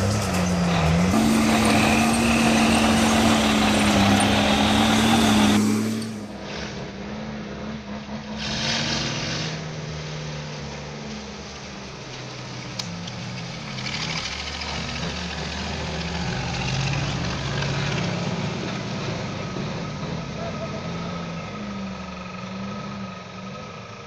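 Engines of logging machines running, in several short clips. A loud, steady engine note cuts off abruptly about six seconds in. After it, quieter diesel engines of a log loader and a log truck run on, their pitch rising and falling.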